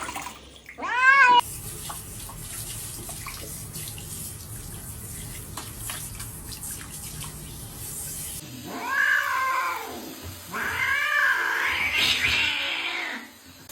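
A cat meows once, then water from a shower runs steadily. Near the end a wet cat lets out three loud, drawn-out meows in quick succession.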